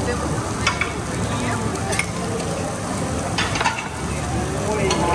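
Food sizzling on a teppanyaki griddle as a chef works it with a metal spatula, the spatula clicking and scraping against the steel plate several times.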